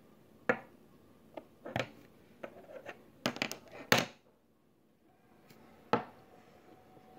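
Sharp plastic clicks and knocks from a small plastic bottle with a snap cap being handled, about eight in all, bunched in the first four seconds with one more knock near the end.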